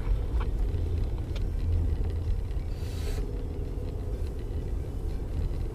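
Steady low rumble of a car driving, engine and road noise, with a brief hiss about three seconds in.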